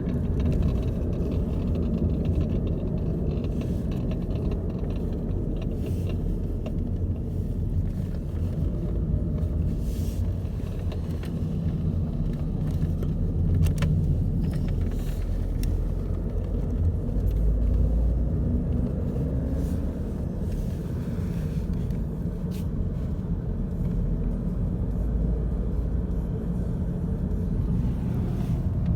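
Steady low rumble of a 2012 Volkswagen Passat TDI's diesel running, with a few faint clicks here and there, the dashboard rattle the owner is asking about.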